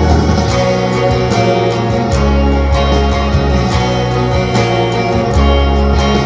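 Electric guitar picking the chords of a rock song, over fuller music with a bass line that changes note every second or two.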